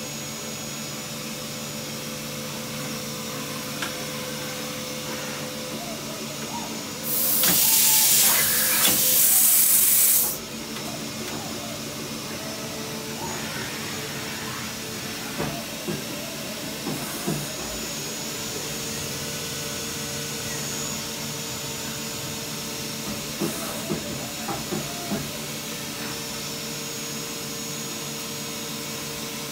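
Mazak INTEGREX 200-IV multi-tasking lathe running, a steady hum with several fixed tones while its milling head moves to a new position. About seven seconds in a loud hiss lasts about three seconds, and small groups of light clicks and knocks follow later.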